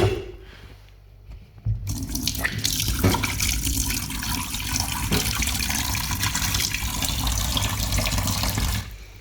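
Water tap running into a sink while peeled boiled eggs are rinsed under it to wash off bits of shell. The flow starts suddenly about two seconds in and is shut off near the end.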